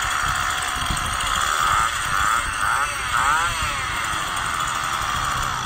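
Small two-stroke brush cutter engine running, its pitch rising and falling quickly a few times in the middle, heard played back through a phone speaker.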